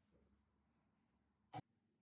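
Near silence: faint room tone, broken once by a single sharp click about one and a half seconds in.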